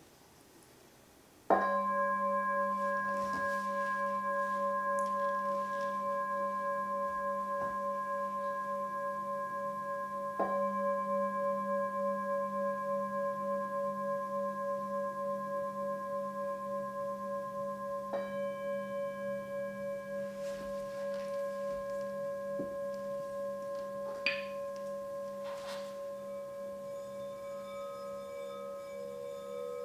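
Crystal singing bowls struck with a padded mallet. A sudden strike about a second and a half in sets a bowl ringing in a long, steady, wavering tone with higher overtones, and a second strike near ten seconds renews it. Near the end another bowl begins to ring at a slightly different pitch.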